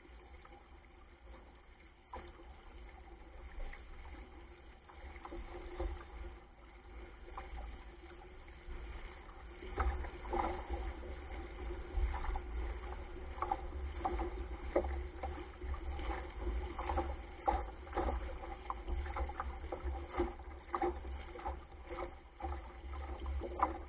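Water splashing and rushing along the hull of a small sailboat driving through choppy waves, with wind buffeting the microphone. The splashing gets louder and more frequent about ten seconds in.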